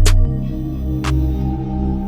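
Background electronic music: a driving beat cuts off just after the start, giving way to soft held synth chords with a single percussive hit about a second in.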